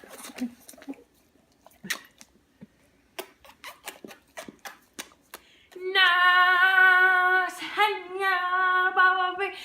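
A few scattered light clicks and taps, then a woman's voice about six seconds in, singing two long, steady held notes with a short break between them.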